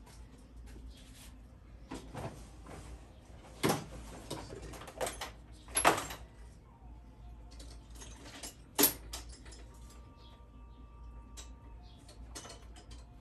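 Rummaging at a metal tool chest: drawers sliding open and shut and tools clinking, with several sharp metal clacks, the loudest about six seconds in.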